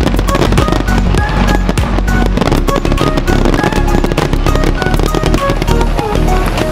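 Fireworks display crackling and popping densely, mixed with music that has a deep, steady bass line and short held notes.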